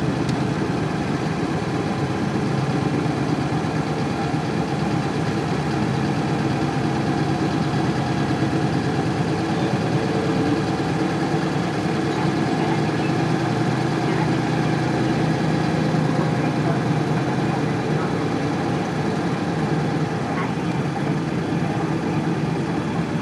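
Isuzu Cubic KC-LV380L bus's 8PE1 V8 diesel engine running steadily, heard from inside the bus.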